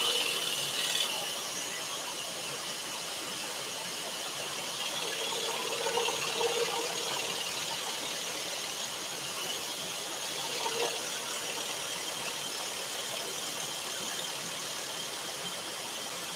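Scroll saw running, its fine blade reciprocating and cutting a thin wooden panel along a pattern line, with dust extraction running alongside. A steady buzzing hiss that swells briefly a few times in the middle.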